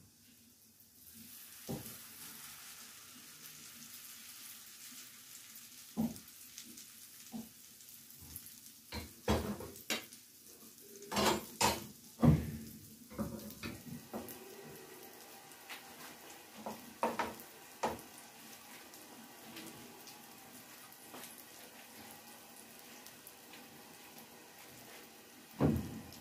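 Potato pancake batter sizzling as it fries in butter and oil in a nonstick pan, a steady hiss that sets in about a second in. Around the middle comes a run of sharp clinks and knocks of a spoon against the bowl and pan, with a few more later and one near the end.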